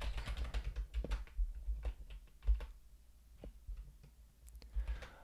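Typing on a computer keyboard: a quick run of keystrokes over the first two seconds, then a few scattered key clicks.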